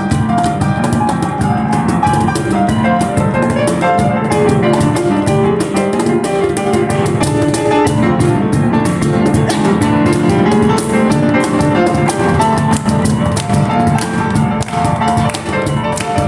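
Live instrumental piano-and-cajón music: a Kawai piano playing a melody and chords over a steady, busy cajón beat.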